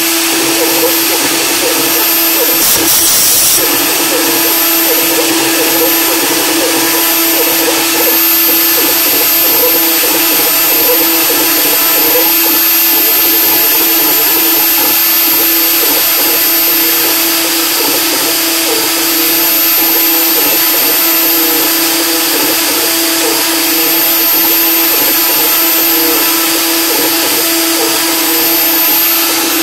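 CNC milling machine spindle running at a steady speed, a constant whine over the noise of a small end mill engraving lettering into aluminium.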